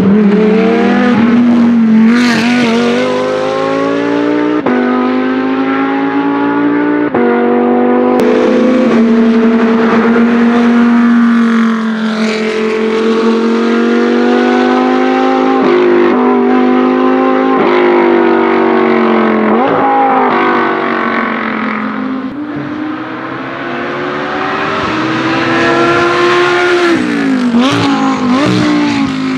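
Audi R8 LMS GT2 race cars' 5.2-litre V10 engines running hard on track, loud throughout, with the pitch breaking and stepping at several quick sequential-gearbox gear changes as the cars pass one after another.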